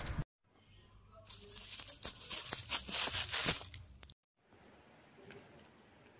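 Clear plastic bag crinkling and crackling as it is handled, with many sharp crackles. The sound cuts off abruptly just after the start and again about four seconds in, leaving only faint noise.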